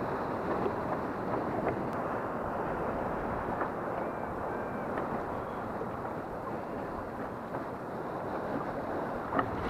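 Wind rushing over the camera microphone, mixed with choppy water and surf breaking, a steady noise with a few faint ticks.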